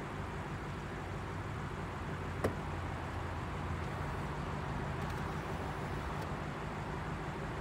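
Lexus LC 500 Convertible's 5.0L V8 idling steadily while its power soft top starts to open. One sharp click about two and a half seconds in, then a few faint ticks as the tonneau cover lifts.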